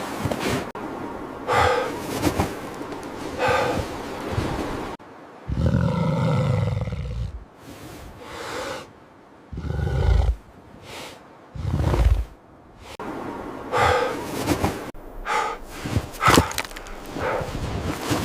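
Wolves growling and snarling, a series of separate deep growls with gusty wind between them.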